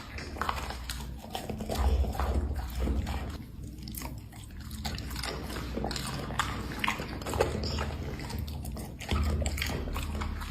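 A dog chewing and eating its food: a run of irregular wet crunches and clicks from its mouth, with occasional low bumps.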